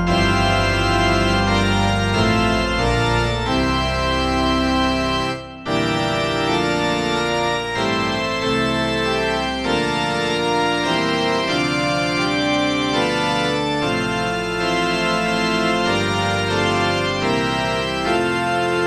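Church organ voice of a Kawai CA67 digital piano playing a slow Czech liturgical piece in sustained full chords over a low bass. The chords let go briefly about five seconds in and then carry on.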